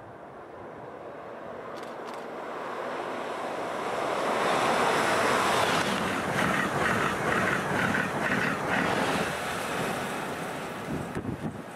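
An Amtrak Acela Express high-speed electric train passing at speed close by. A rush of air and blown snow builds to a peak as the power car goes by, then a quick, even clatter of wheels follows as the coaches pass, and the sound fades away.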